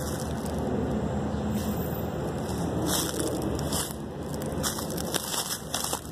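Footsteps crunching on loose railroad ballast stone, roughly one step a second, over a steady low background noise.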